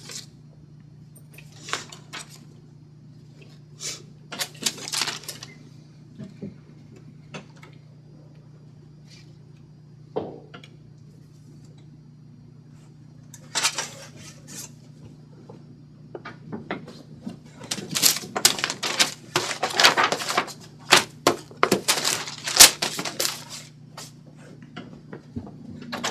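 Intermittent handling noises: papers rustled and shuffled and small objects clinking and knocking on a table. They come in short scattered bursts and thicken into a busy run of clatter in the second half, over a steady low hum.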